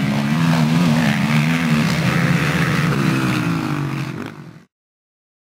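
Racing quad engines running hard on a motocross track, the pitch wavering up and down with the throttle. The sound cuts off abruptly near the end.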